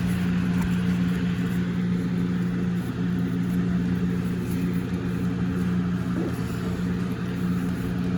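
A motor running with a steady, even low hum.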